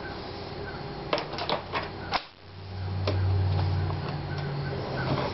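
Sharp plastic clicks and knocks as a laptop is turned over and its battery is slid into the bay and latched. A low steady hum starts about halfway through.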